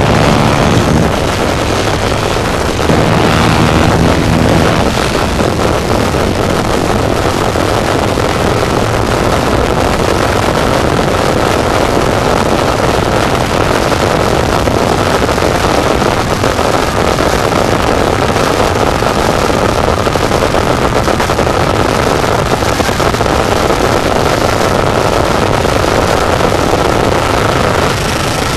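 Harsh noise music: a loud, unbroken wall of dense static and distortion, with a low pitched drone showing through briefly at the start and again about three seconds in.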